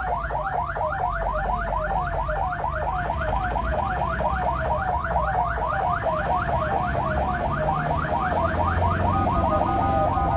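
Ambulance siren sounding a fast yelp, quick falling sweeps at about four or five a second, heard from inside the cab over the engine's rumble. Near the end it switches to a steady tone of several pitches.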